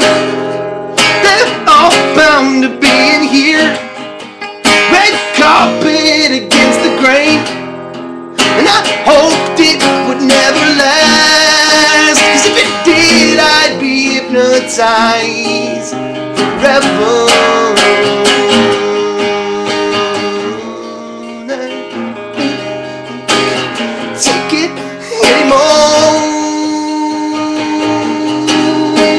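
Acoustic guitar played solo, strummed and with picked notes, with a voice singing over it in places.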